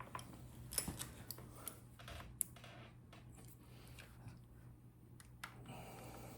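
Faint, irregular clicks and taps of pliers and tools on the metal parts of a Daisy BB gun, as the compressed mainspring and a stuck spring anchor are worked on. Most of the clicks fall in the first couple of seconds, with a low steady hum under them.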